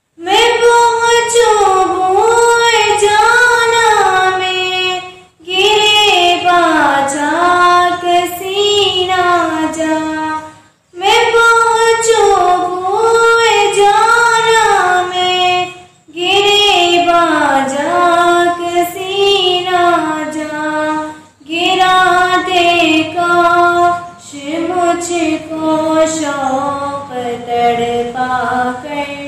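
A girl singing a naat, a devotional song in praise of the Prophet, solo and unaccompanied. She sings in ornamented phrases of about five seconds each, with brief pauses for breath between them.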